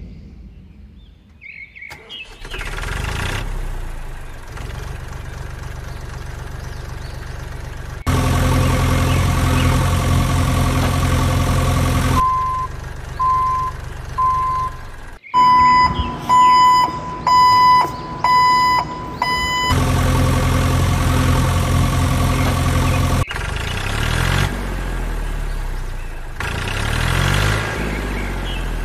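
Heavy-vehicle engine sound effects running and idling, laid over the toy vehicles in segments that change abruptly. Midway through, a reversing alarm beeps about nine times, the first few quieter.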